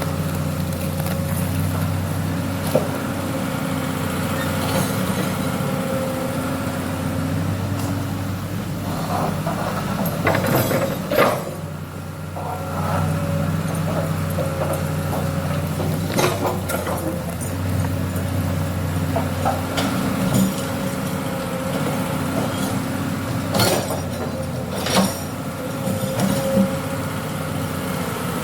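Hydraulic excavator's diesel engine running steadily, with a steady higher tone above its drone. Several short, sharp knocks and clanks come through, a cluster around the middle and a few more in the later part.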